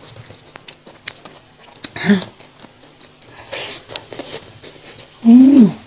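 Close-miked mouth sounds of someone eating fried noodles and rice by hand: scattered wet clicks and chewing. Near the end comes a short, loud vocal sound that falls in pitch.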